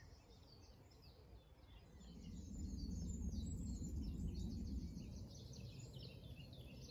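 Faint birdsong: many small chirps and twitters from several birds. A low rumble swells for a few seconds in the middle and fades again.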